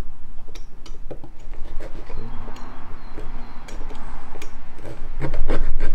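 A small blade cutting a wetted resin part off its casting block: repeated scraping strokes with irregular small clicks and ticks.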